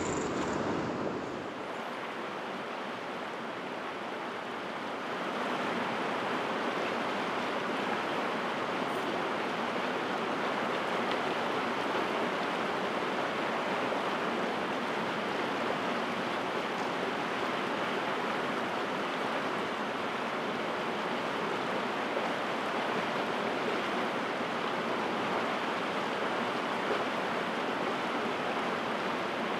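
Steady rush of river water running over rocks and rapids, a little louder from about five seconds in.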